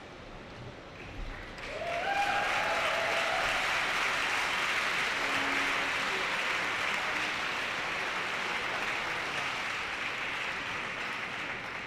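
Large crowd applauding and cheering, with a few shouts. It swells up about two seconds in, holds steady, and begins to die down near the end.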